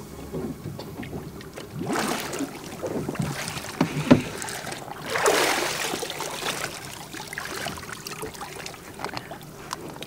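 Water splashing and sloshing against the side of a small boat as a scuba diver surfaces alongside and passes up his camera housing, with a sharp knock about four seconds in.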